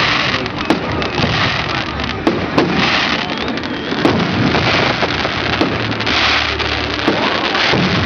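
Fireworks going off: a dense run of sharp bangs and pops, several a second, over continuous crackling.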